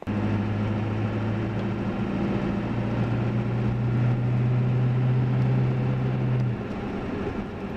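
Road noise from Mickey Thompson Deegan 38 mud tires on a Ford F-350 at about 55 mph, heard inside the cab with the window up: a steady, loud drone over road rush. The strongest part of the hum drops away about six and a half seconds in.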